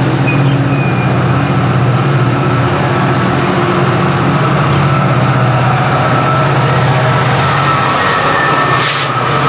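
Metrolink commuter train passing at speed: the bilevel coaches' wheels running steadily on the rails, with the MP36PH diesel locomotive going by near the end.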